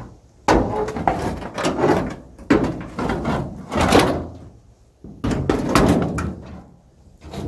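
Old wooden boards and a rusty sheet of roofing metal being shifted and pulled from a collapsed hut, clattering and scraping in a series of loud bursts with sharp knocks.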